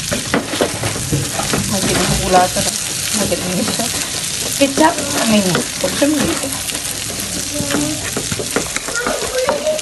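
Chicken pieces sizzling in a hot nonstick frying pan while a wooden spatula stirs them, with frequent scraping and knocking against the pan.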